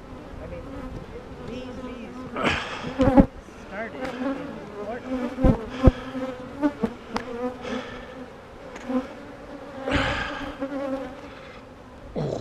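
Swarm of honeybees buzzing steadily around the open hive, with bees flying close past the microphone now and then. A few sharp knocks sound in the middle.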